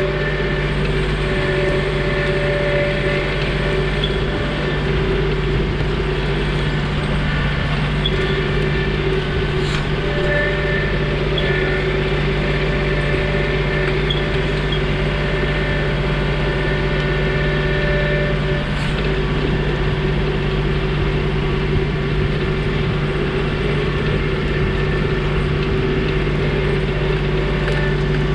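John Deere 2032R compact tractor's three-cylinder diesel engine running at a steady speed.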